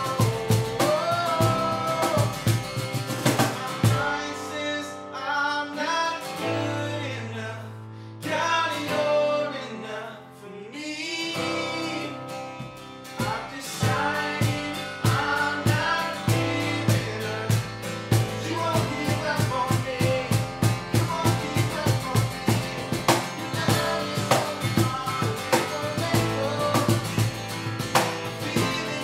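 Worship band playing a song: a voice singing over guitar and a drum kit. The drums drop out for several seconds a few seconds in, then come back in with a steady beat.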